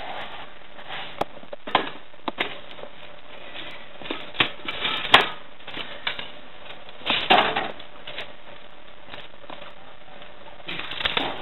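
Scattered knocks, clicks and short scrapes of a sheet-metal hand cart with sand in it being handled. The loudest are a sharp knock about five seconds in and a half-second scrape a couple of seconds later, over a steady background hiss.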